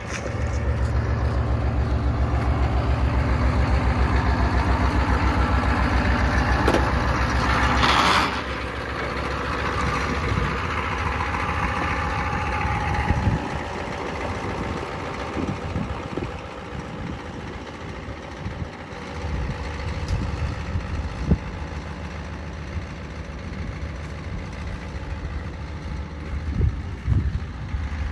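Diesel engine of a Ford pickup with twin exhaust stacks, running loudly with a steady, even pulse. About eight seconds in there is a short loud rush, then the engine sound drops and changes as the truck pulls away and drives off.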